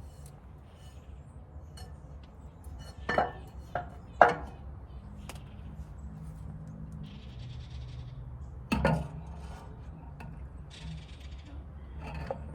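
Metal parts and tools clinking and knocking while a generator is taken apart: a few sharp clinks, the loudest about four seconds in and another near nine seconds, over a low steady hum.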